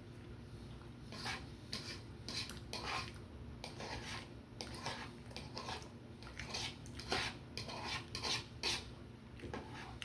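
Cutlery scraping and clinking against a dish while eating, in many short, irregular strokes.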